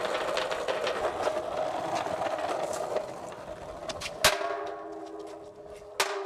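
Skateboard wheels rolling over rough concrete with a steady grinding rattle of small clicks. About four seconds in a sharp knock is followed by a held ringing tone, and a second sharp knock comes near the end.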